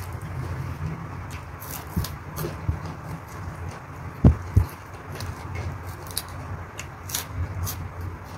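Close-up chewing of crisp raw green onion and lettuce, with many small crunchy clicks, and two dull thumps about four seconds in.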